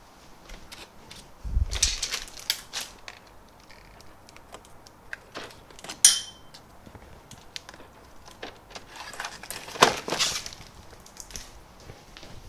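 Workshop handling noise: small metal parts and tools clattering and clinking as they are picked up and moved, with a dull thump about a second and a half in and a sharp ringing metallic clink about six seconds in.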